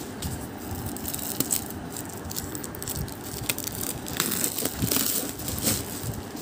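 Clear plastic wrap crinkling and crackling as it is pulled off a tightly wrapped rolled EVA foam yoga mat, in irregular crackles that get busier about four seconds in.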